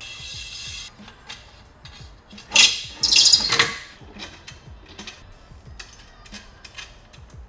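Metal mounting brackets being handled and fitted against a roof rack: small clicks and knocks throughout, with two loud scraping bursts about two and a half and three seconds in.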